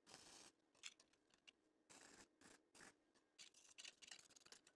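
Near silence, with a few faint scrapes and small ticks.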